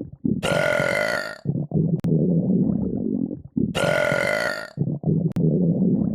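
Continuous burping: long, low burps alternate with shorter, higher-pitched ones, about half a second in and again near four seconds. The pattern repeats roughly every three seconds.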